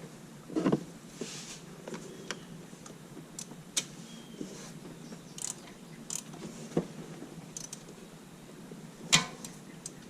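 Hand tools and engine parts being handled: scattered irregular light clicks and clinks, with a louder knock under a second in and the sharpest click about nine seconds in, over a low steady hum.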